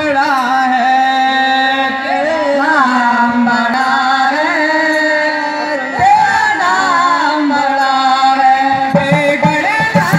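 A solo voice singing a slow melody of long, sliding notes over music, with percussion coming in near the end.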